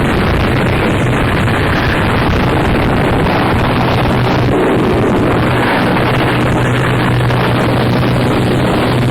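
Harsh noise music: a loud, unbroken wall of distorted noise with a steady low hum running underneath.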